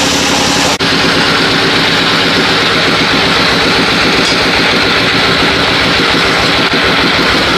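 Engine of a sawmill running steadily, with a brief dropout about a second in.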